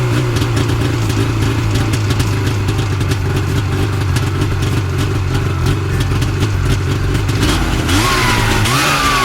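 A vehicle engine running steadily, a low continuous drone with a rapid chatter. Near the end a siren-like wail rises and falls.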